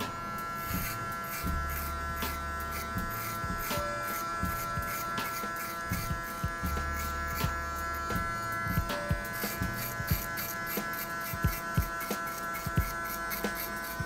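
Electric hair clipper with a guard attachment buzzing steadily as it cuts short hair at the temple, with irregular short ticks that come more often in the second half.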